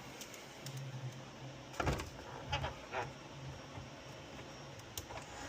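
Scattered light clicks and knocks of hands handling plastic parts while loading a filament spool into a 3D printer, over a faint low hum that comes and goes.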